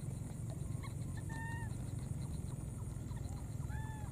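A baby macaque's short, squeaky calls, each rising then falling in pitch, in two small groups about a second in and near the end. A steady low rumble runs underneath.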